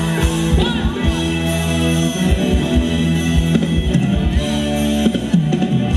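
Live band playing amplified Thai ramwong dance music: a steady drum beat under held chords, with some singing.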